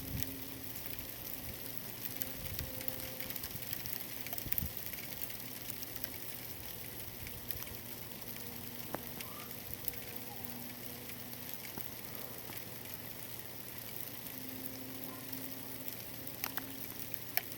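Sleet pellets and freezing rain hitting a roof: a steady hiss made of many tiny ticks, with a faint steady hum underneath.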